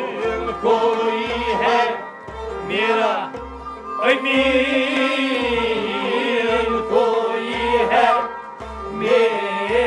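Background music: a melodic line over a steady low drum beat, about one beat a second.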